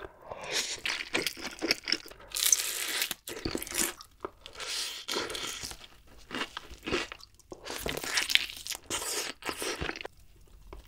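Close-miked eating sounds: crunching bites of honey-glazed fried chicken and slurps of spicy stir-fried ramen noodles, with chewing, in irregular bursts and pauses.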